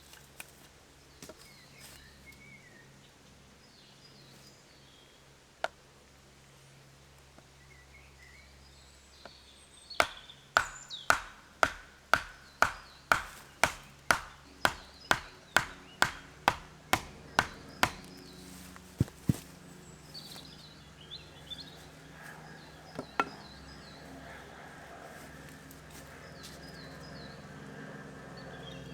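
About twenty sharp, evenly spaced blows of a tool on wood, roughly two and a half a second, each with a short ring, followed by a couple of stray knocks. Faint bird chirps sound in the background.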